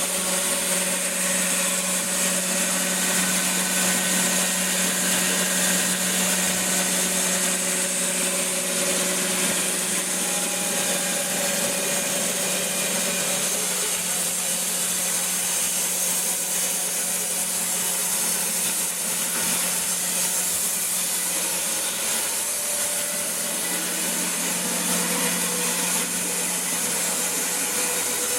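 LDA-300 band resaw running steadily, its band blade cutting timber, with a constant low hum under a steady high hiss.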